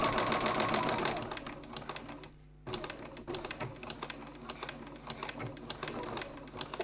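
Sewing machine stitching fast, then slowing about a second in. After a short pause it sews slowly, a few separate needle clicks a second, easing up to the stopping point of the seam.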